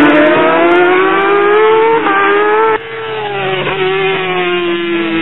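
Several racing superbikes accelerating hard at high revs, engine note climbing with a quick gear change about two seconds in. Just under three seconds in the sound drops abruptly, and the engines continue more distantly with a slowly falling pitch as they pull away.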